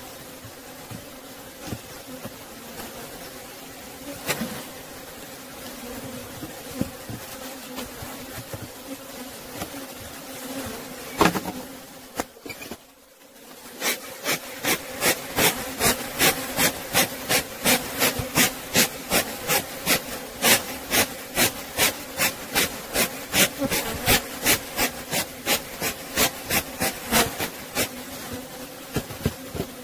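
Honeybees buzzing steadily over an open hive. Through the second half a regular series of sharp clicks, about two a second, rises above the buzzing.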